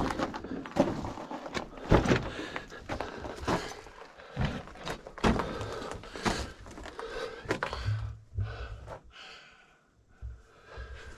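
Irregular thumps, scrapes and rustling of a person crawling forward through a tight lava tube, body and gear knocking and rubbing on the rock. It goes quieter about eight seconds in.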